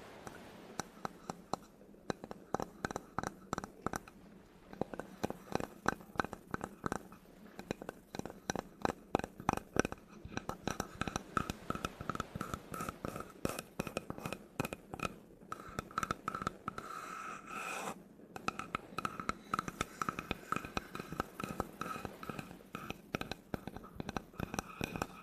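Quick tapping and scratching on a wooden surface, several sharp taps a second with a light ring behind them. A brief continuous scratch comes about two-thirds of the way in, then a short pause before the tapping resumes.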